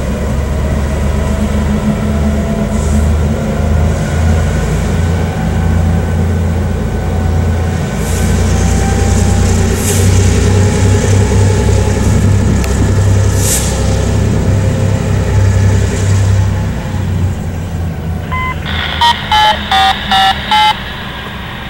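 Diesel locomotive engine rumbling, louder through the middle, with a few short hisses of air. Near the end comes a quick run of electronic beeps over a scanner radio.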